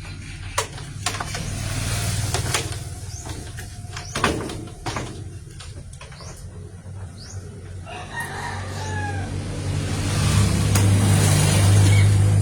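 A rooster crows once about eight seconds in. Before it come scattered clicks and knocks of hands working on the opened washing machine. A low rumble swells near the end and is the loudest sound.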